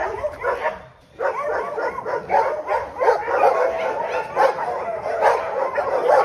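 Several dogs barking and yelping in a busy, overlapping chorus, with a short lull about a second in.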